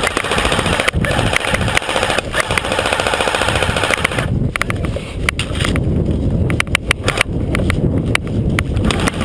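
Airsoft electric rifle firing a long full-auto burst of rapid mechanical clicks for about four seconds. After that, heavy running footsteps with a few scattered single shots.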